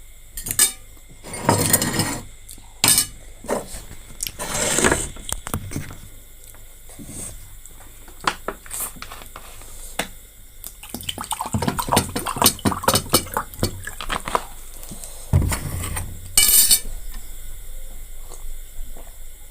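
Utensils clinking and scraping against a bowl while eating noodles, many sharp clicks with a few longer noisy bursts.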